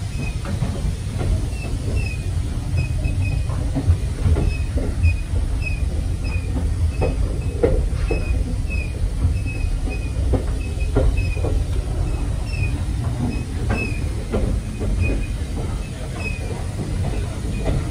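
Heritage-railway passenger train running along the track: a steady low rumble of wheels on rails with irregular knocks and rattles from the carriage, and faint short high squeaks repeating about twice a second.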